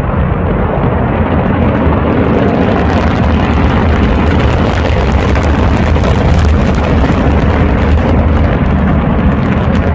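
Loud, continuous roar of a huge explosion and fireball: a deep rumble laced with dense crackling, swelling over the first two or three seconds, then dropping away sharply near the end.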